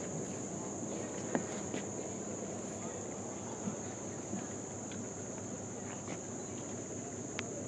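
Insects singing in a steady, unbroken high drone, over a low rumble and a few faint clicks.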